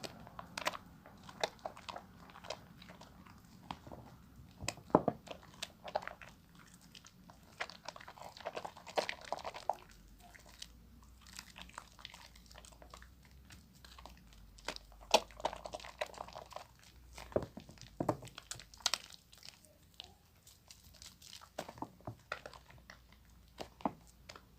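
Wet, squishy crackling of a bar of soap being lathered by hand, with irregular clicks and pops of foam and a few louder squelches.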